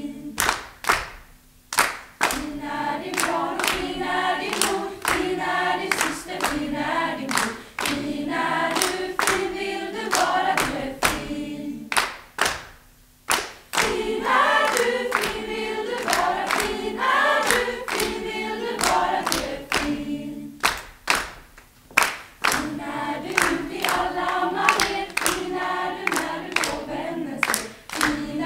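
A group of young female voices singing a folk song together, with rhythmic hand claps about twice a second. The claps keep going through short breaks between the sung phrases.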